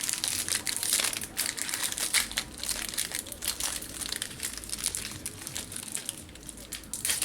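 Foil trading-card booster pack wrapper crinkling as it is torn open and handled, a dense run of crackles that thins out after the first couple of seconds.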